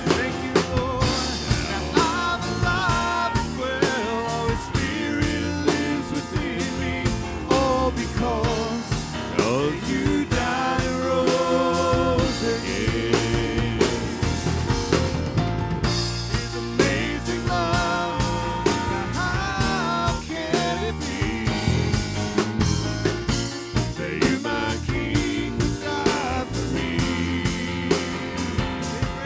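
Live praise band music with drum kit and guitar, and some singing.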